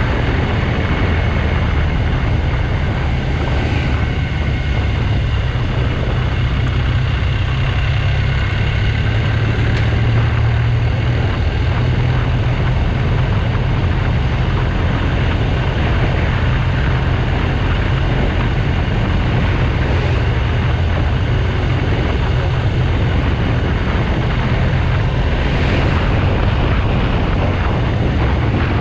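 BMW R1200GS Adventure's boxer-twin engine running steadily while riding, mixed with wind rush on the action-camera microphone.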